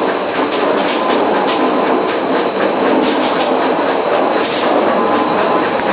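Olive colour sorter running: a steady loud rattle of olives moving through the machine, with short sharp hisses at irregular intervals, often in quick clusters, from its compressed-air ejectors firing to reject olives.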